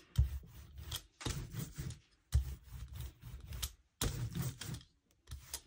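Hand-held printmaking brayer rolled through wet acrylic paint to clean the excess off the roller: four rolling strokes of about a second each, with a short fainter one near the end.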